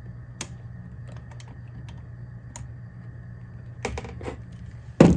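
Scattered light clicks and taps as a hand and screwdriver press and prod at the open Sony TC-K75 cassette deck, trying to work a switch inside it. A louder knock comes at the very end, over a steady low hum.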